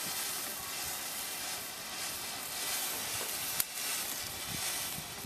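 Ground fountain firework spraying sparks with a steady hiss, with a single sharp pop about three and a half seconds in.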